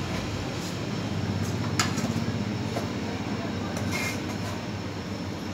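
A steady low hum and rumble, with two light knife strikes on a cutting board, about two seconds in and again about four seconds in.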